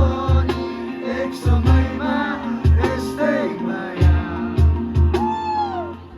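Live rock band playing an instrumental passage: a drum kit with a regular kick drum, bass and guitars, and a lead line bending up and down in pitch.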